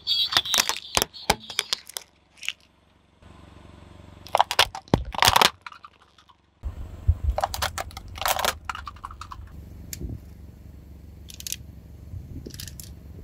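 Objects being crushed under a car tyre: bursts of sharp cracks and crunches in three clusters, the loudest about five seconds in, then a few scattered single cracks. A low rumble runs underneath through the second half.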